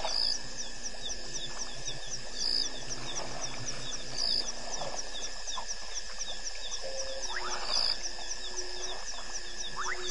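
Night-time bush chorus of calling insects: a fast, regular high chirping at about four to five a second over a steady high tone, with a louder, higher call repeating roughly every two seconds.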